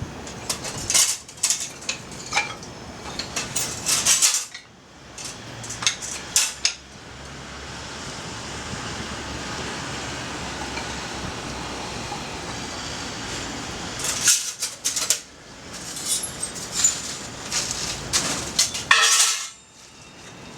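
Two bursts of light metallic clinking and rattling over a steady hiss of wind and fire.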